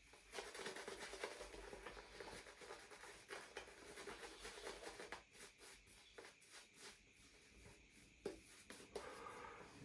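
Shaving brush working lather onto the face: a run of quick, faint scrubbing strokes, sparser in the second half.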